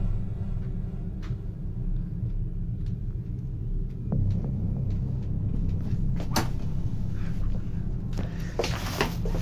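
A steady low rumbling drone with a few scattered sharp clicks and knocks, the loudest cluster coming near the end.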